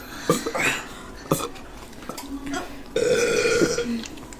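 A person burping after gulping carbonated soda during a burping challenge, with one long burp about three seconds in.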